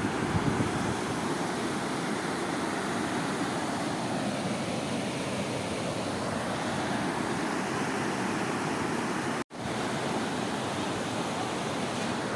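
Floodwater rushing, a steady loud roar of water that breaks off for an instant about nine and a half seconds in.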